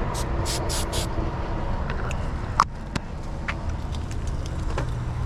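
Wind buffeting the microphone as a steady low rumble, with four short hissing spurts of aerosol butter-flavour cooking spray in the first second. A sharp click about two and a half seconds in.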